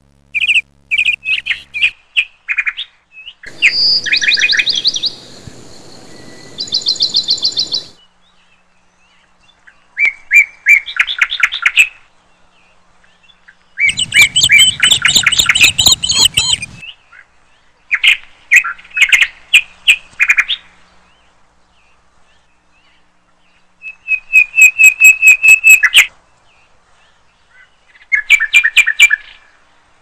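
Birds calling in separate bursts of rapid, repeated chirps and whistled trills, each burst a second or a few long, with quiet gaps between them.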